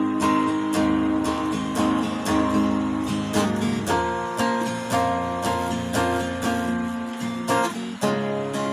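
Acoustic guitar being strummed, playing a run of ringing chords with regular strokes; the chord changes about four seconds in and again near the end.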